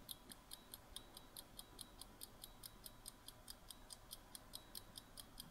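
Quiz countdown timer sound effect: faint, even ticking, about five or six ticks a second.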